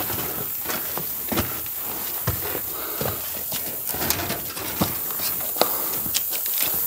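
Irregular footsteps, knocks and scrapes as a person picks his way over loose boards and rubble out of a collapsed shack, over a steady high hiss.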